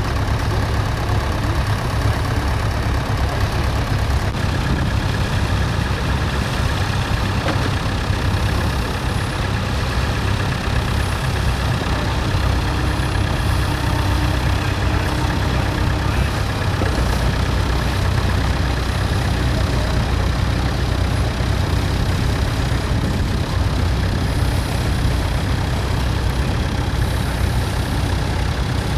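Vintage tractor engine running steadily; its low note gets a little deeper about halfway through.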